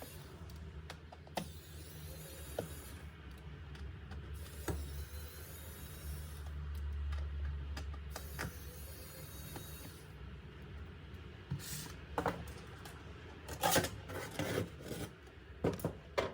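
Hands working on an open laptop with small tools: low rubbing and handling noise with scattered light clicks and taps, which come more often in the last few seconds.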